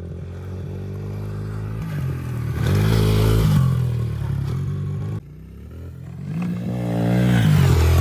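Dirt bike engine revving up and falling back twice, the second time after the sound breaks off suddenly about five seconds in.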